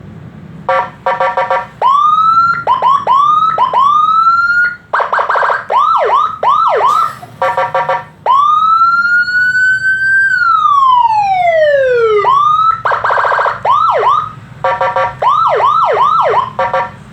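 Four-tone Whelen-style electronic siren module sounding through its speaker, switching between tones with short gaps: short buzzing horn blasts, repeated quick rising whoops, one long rise and slow fall, and fast warbling whoops.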